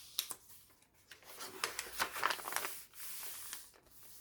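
Paper pages of a thick handmade junk journal being turned and handled: rustling and crinkling paper with quick small crackles and taps.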